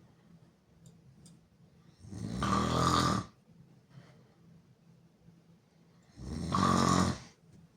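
A person snoring loud and hard with the mouth open: two snores, each about a second long, coming about four seconds apart, with quiet gaps between.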